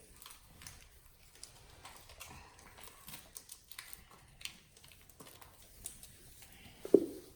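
Faint, irregular light taps and rattles of glitter being shaken out of a plastic container onto slime. A brief voice sound comes near the end.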